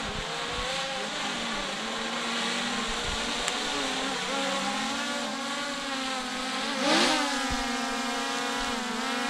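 Small quadcopter drone's propellers whining as it comes down and hovers close, the pitch wavering up and down with throttle changes. About seven seconds in it briefly surges louder with a quick swoop in pitch.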